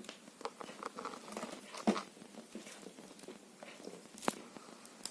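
Light clicks, taps and rustling of electrical wires being handled for a series test-lamp check, with two sharper clicks about two seconds and four seconds in.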